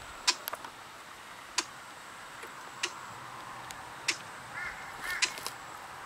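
Footsteps on dry twigs and stones of a creek bed: sharp, irregular snapping clicks about once a second. There are two short high chirps about four and a half and five seconds in.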